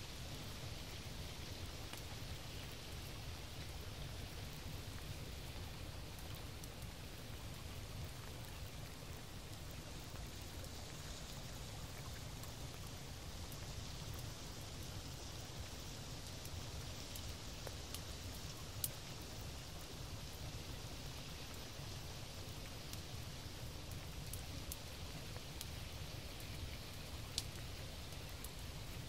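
Steady rain: a continuous, even hiss of falling drops, with two single sharp ticks about two-thirds of the way in and near the end.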